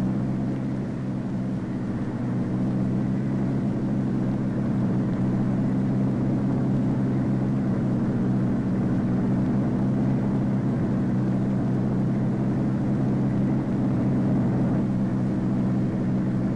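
Steady aircraft engine drone with a low hum, unchanging in pitch and level.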